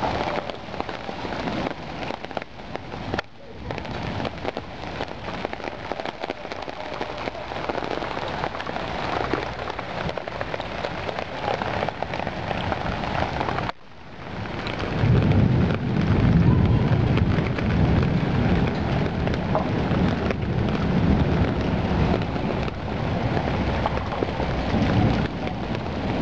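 Heavy rain pouring onto a flooded street and splashing into standing water, a steady hiss. Just past halfway the sound breaks off for a moment, then a louder, ragged low rumble joins the rain.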